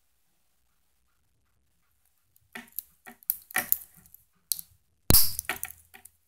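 Metal link bracelet and folding clasp of a TEVISE Submariner-homage watch being handled: a run of small metallic clicks and clinks starting about two and a half seconds in, the loudest a sharp snap about five seconds in.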